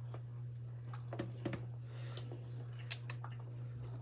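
Quiet chewing of a bite of cheese-and-pepperoni stuffed pretzel, with a few small mouth clicks about a second in and again around three seconds, over a steady low hum.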